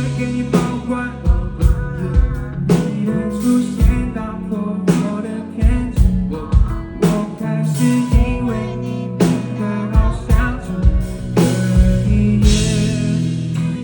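Live pop-rock band playing: drum kit hitting a steady beat under bass and electric guitar chords, with a voice singing over it.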